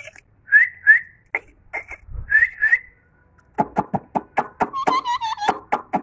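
Male Indian ringneck parakeet whistling and chirping. It gives short rising whistled notes in two pairs, and after a brief pause a fast run of clicks and chirps ending in a string of quick repeated notes.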